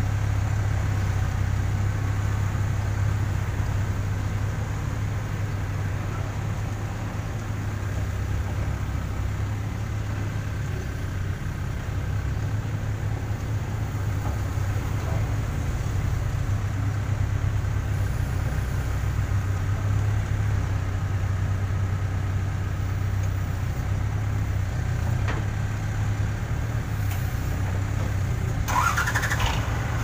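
Diesel engine of a Case N Series backhoe loader running steadily at work. A brief high squeal wavers up and down near the end.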